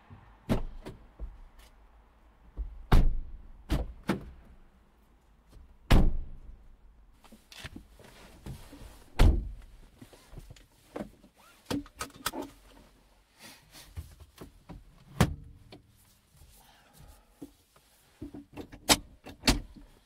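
Irregular sharp clicks, knocks and several louder thumps from things being handled inside a Mini Clubman's cabin, such as doors, keys and fittings, with no steady engine sound under them.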